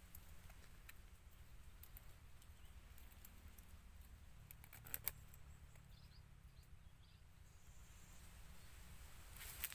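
Near silence with a faint low rumble. Two short soft clicks come about five seconds in, and small crackles begin near the end.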